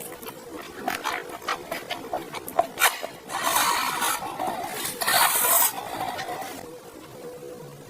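Close-up eating sounds of juicy rice noodles: wet mouth clicks and smacks, then two long slurps of noodles about three and five seconds in.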